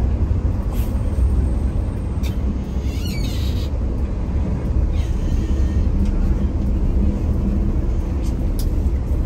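Bus on the move: a steady low rumble of engine and road noise, with a few short squeaks and rattles over it, the clearest a brief wavering squeak about three seconds in.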